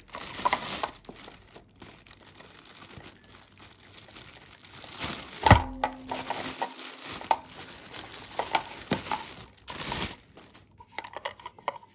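A clear plastic bag crinkling and rustling as it is handled and items are pulled from it, with one sharp knock about halfway through.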